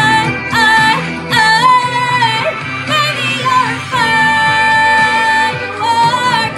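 A woman belting a pop ballad, with short vocal runs and one long held high note about four seconds in.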